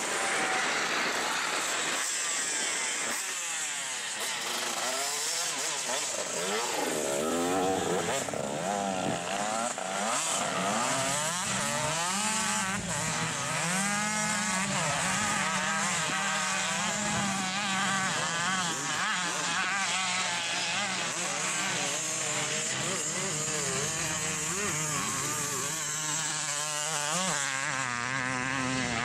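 Motocross dirt bike engines revving as they ride, their pitch rising and falling again and again through the gears, with several engines overlapping at times.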